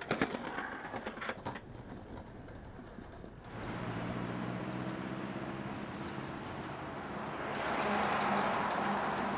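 Skateboard clacks and impacts on concrete in the first second or so, then a car engine running close by with steady street traffic noise, swelling near the end.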